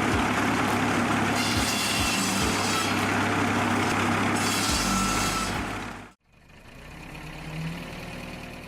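Large old engine running steadily, driving a homemade log saw's blade, with stretches of louder hiss. It cuts off abruptly about six seconds in, and a quieter machine hum follows.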